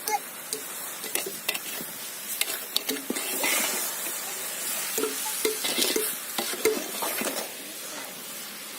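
A spoon stirring and scraping pumpkin halwa in a pan on the heat, with irregular scrapes and knocks against the pan and a sizzle that swells twice.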